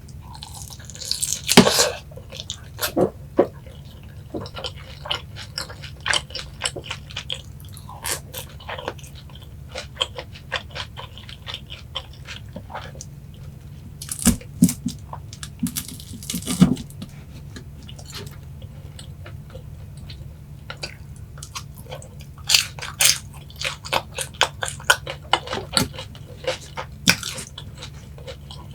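Close-up chewing and crunching of boneless Korean yangnyeom fried chicken: bursts of crisp bites and wet chewing, loudest in clusters near the start, around the middle and toward the end, over a faint steady low hum.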